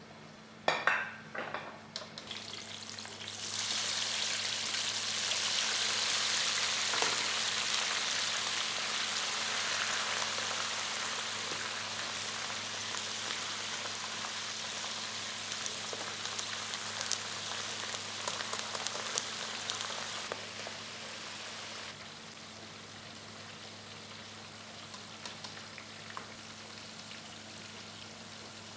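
Food frying in hot oil: a few clatters at the start, then a steady sizzle that swells about three seconds in and drops back down after about twenty seconds.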